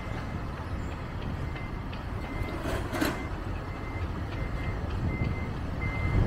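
Car driving through city streets: a steady low road and engine rumble, with a brief louder rush of noise about three seconds in. A short high beep repeats a little faster than once a second, plainer near the end.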